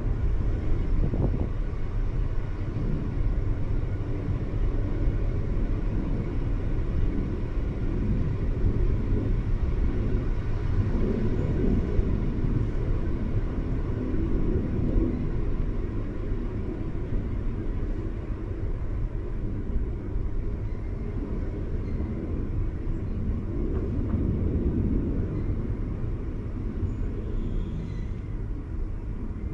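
Electric passenger train running along the line, heard from the driver's cab: a steady low rumble of wheels on rail, swelling slightly a couple of times.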